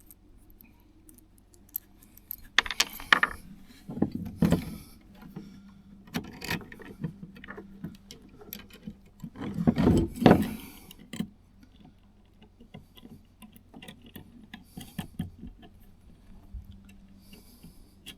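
Metal clinking and clicking as wire-rope clamps are fitted and tightened onto a steel cable, with a few louder clanks of handling about three, four and a half, and ten seconds in.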